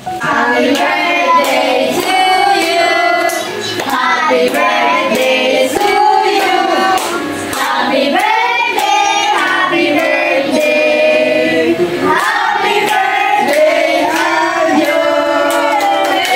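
A song: high voices, a child's or a woman's, singing a melody with music.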